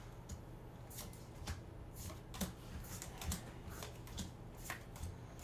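Pokémon trading cards being flicked one at a time from the front to the back of a pack's stack, each card giving a short crisp snap, irregularly, about two a second.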